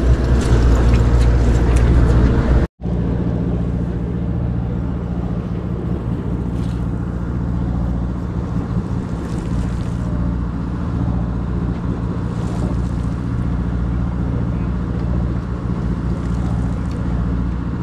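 Music for the first few seconds, then after a sudden cut a sportfishing boat's engine drones steadily at a constant pitch.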